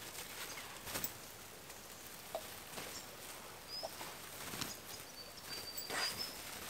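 A heavy canvas ground mat rustling and flapping as it is handled and folded, with scattered scrapes and footsteps on dirt. A thin bird whistle sounds a few times in the second half over a steady hiss of a flowing river.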